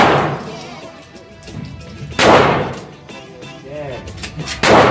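Canik TP9SF 9mm pistol firing three single shots about two and a half seconds apart, each ringing out in an indoor range, over quieter background music.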